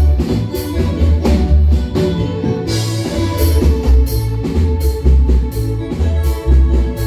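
Marimba band playing live dance music: marimba and keyboard notes over drums and a strong, steady bass beat.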